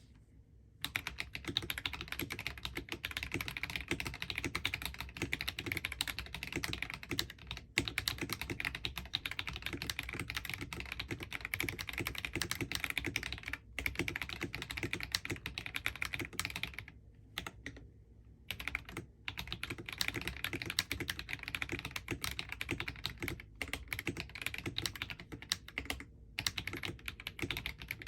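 Continuous typing on a mechanical keyboard with NicePBT Peaches n Cream Lite PBT keycaps over linear switches: a dense clatter of keystrokes that starts about a second in and is broken by a few short pauses.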